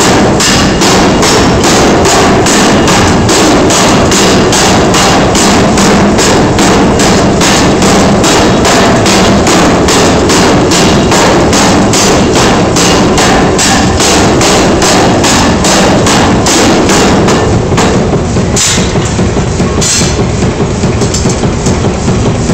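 Massey power hammer forging a red-hot steel ball between its dies: a rapid, even run of heavy hammer blows. Near the end the blows thin out and come less regularly.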